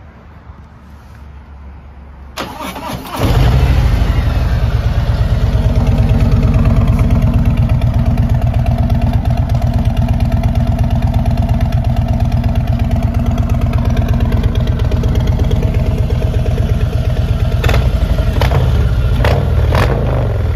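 2019 Harley-Davidson Road Glide Special's Milwaukee-Eight V-twin being cranked by the starter about two seconds in, catching almost at once and settling into a loud, steady pulsing idle, heard at the exhaust tips. A few brief sharper sounds come near the end.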